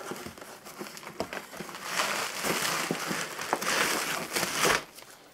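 Plastic packaging rustling and crinkling, with scattered sharp clicks. The crinkling is thickest from about two seconds in and stops shortly before the end.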